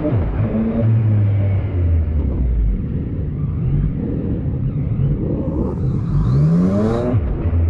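Motorcycle engine running under way with wind and road noise. About six seconds in it revs up steeply, then drops sharply at a gear change.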